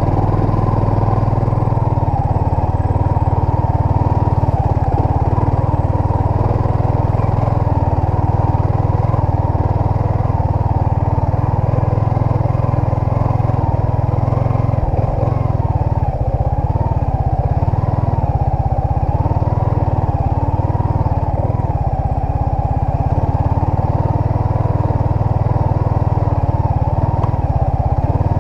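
Yamaha Sniper 155 motorcycle's single-cylinder engine running steadily as it rides a dirt trail, its note wavering gently up and down with the throttle over a continuous low rumble.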